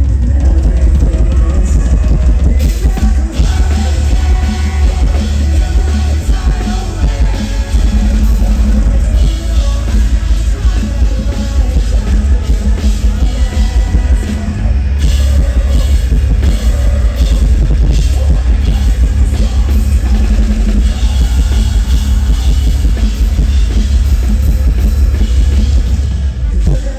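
Metalcore band playing loud and live through a concert PA, with a heavy, pounding drum kit and thick low end.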